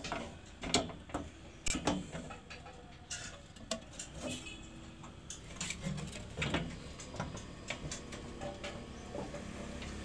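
Irregular light clicks and metallic knocks as the parts of a powder-coated steel swing-chair frame are handled and fitted together, with a bolt pushed through its square tubes. The sharpest knocks come about a second and two seconds in.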